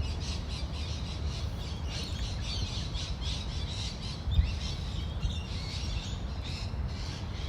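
Several birds chattering and squawking in quick short calls, over a steady low rumble.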